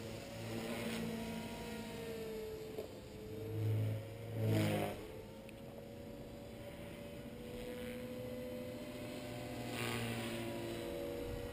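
Electric 450-size RC helicopter (Walkera V450D01) in flight: a steady motor and rotor whine whose pitch wavers slightly as it manoeuvres. It surges loudly twice a little past the middle, and again more gently near the end.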